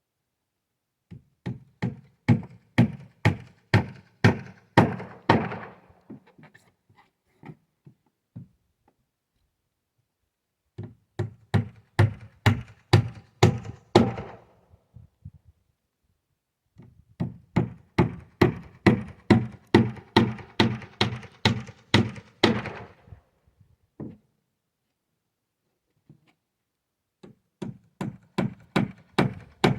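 Hammer driving nails into wooden boards: four runs of quick, even blows, about three a second, with short pauses between runs.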